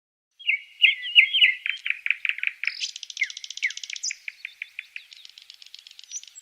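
Birds singing: repeated short chirps starting about half a second in, joined in the middle by a fast high trill, several calls overlapping.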